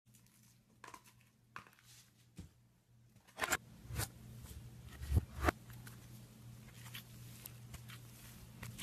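Hands pressing and squishing a sandy slime, giving scattered crunchy crackles and a few sharper snaps, the loudest a pair about five seconds in. A steady low hum runs underneath.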